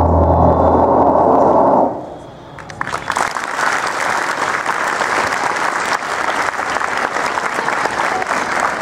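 The last held note of the backing music, with strong low tones, stops about two seconds in. After a short lull, an audience breaks into steady applause.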